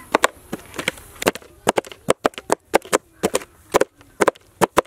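Knife blades clicking against a steel plate as whole red pomfret are scored. There are about twenty sharp, irregular clicks, some in quick pairs.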